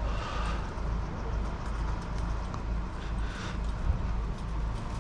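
Low rumble of wind buffeting the microphone, with scattered light clicks and rustles of wire and chain-link mesh being handled and a sharper tick about four seconds in.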